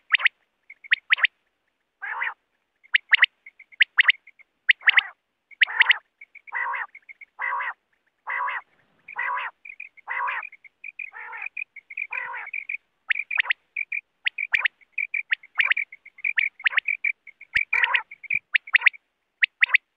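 Quail calling: quick clusters of short, sharp high notes repeated throughout, with a run of longer, lower calls about one a second from about two seconds in to about thirteen, and again near the end.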